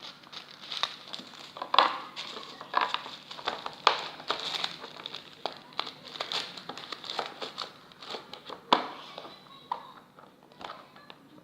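Slime being squeezed and worked by hand, giving irregular crackling clicks and pops.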